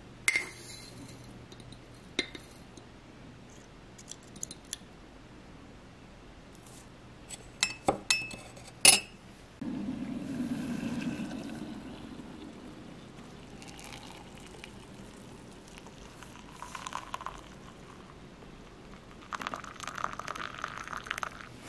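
A metal spoon clinking against a ceramic mug several times, loudest about eight to nine seconds in, then a low rushing noise for about two seconds. Near the end, water is poured from a kettle into the mug of black coffee.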